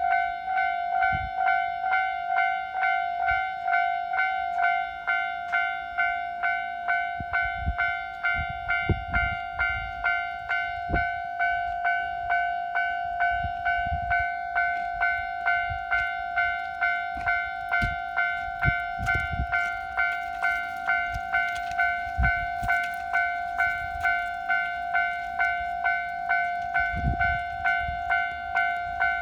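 Japanese railway level-crossing alarm ringing steadily at about two strikes a second, with the low rumble and knocks of a train passing over the crossing at times.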